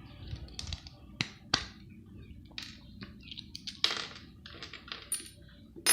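A plastic multi-socket plug adaptor being dismantled with cutters: scattered sharp clicks and snaps with light scraping and clattering of its small metal parts. A few louder clicks stand out, about a second in, at a second and a half, near four seconds and at the very end.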